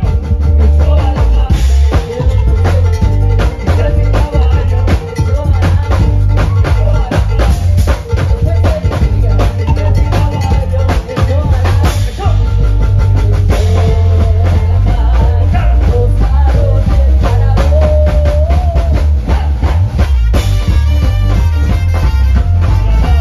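Batucada percussion ensemble playing a loud, driving samba rhythm, with bass drums and snare drums, and a melody line over the drumming.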